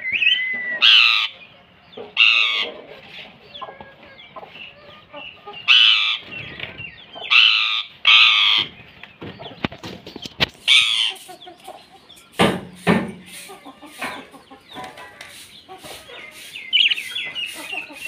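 Caged rose-ringed parakeets screeching: a series of short, loud, harsh calls, several seconds apart, with softer bird chatter between them. A lower-pitched loud call comes about twelve and a half seconds in.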